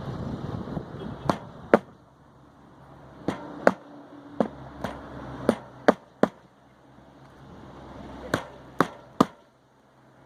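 Steel roofing hatchet driving roofing nails through asphalt shingles: about a dozen sharp hammer blows in quick groups of two or three, the last two groups of three.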